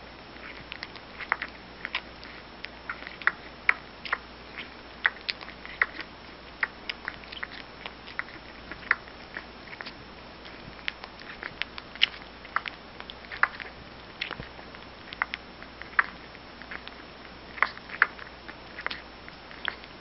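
Newborn puppy sucking milk from a baby-bottle nipple: a run of irregular, wet smacking clicks, a few a second.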